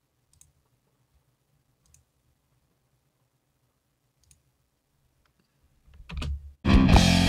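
A few faint mouse clicks, then about six seconds in the band's multitrack mix starts playing back loudly, with its click track sounding.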